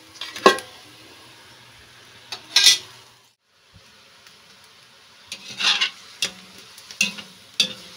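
Metal lid clanking off a large aluminium wok about half a second in, with a clatter a couple of seconds later. Then a metal spatula scrapes and stirs through pork browning in its own fat, sizzling, with several sharp taps against the wok near the end.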